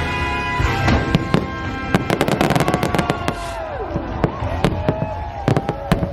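Fireworks bursting over orchestral show music, with a rapid run of sharp bangs and crackles about two to three seconds in and scattered single bangs after it.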